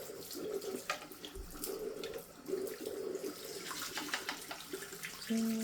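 Hot water running from a tap into a sink, with short scratchy scrubbing noises as a plastic washing-machine drawer part is cleaned under the stream. A brief steady hum sounds near the end.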